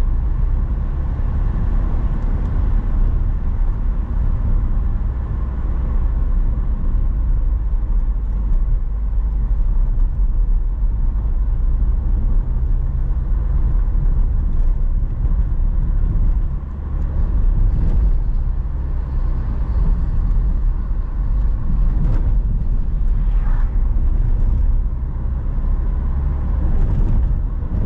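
A car driving along a highway: a steady low rumble of engine and tyre noise on the road.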